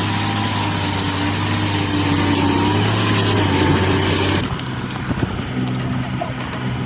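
An engine running steadily. About four and a half seconds in, the sound cuts abruptly to a quieter engine with a few knocks.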